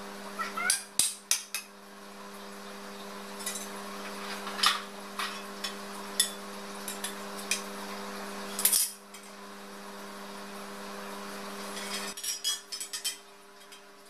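White-painted steel tubes and frame pieces of a Lerberg shelf clinking and knocking against each other and on a tiled floor as they are handled and fitted together, in irregular sharp clicks with a quick run of them near the end. A steady low hum runs underneath and drops away shortly before the end.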